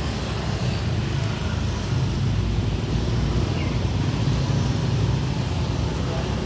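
A vehicle engine running steadily, a low drone with no breaks.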